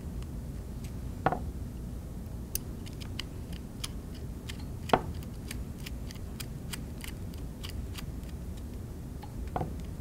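Light, irregular metallic ticks of a screwdriver turning a small machine screw to close a DB9 connector's metal shell, with two louder clicks about a second and about five seconds in.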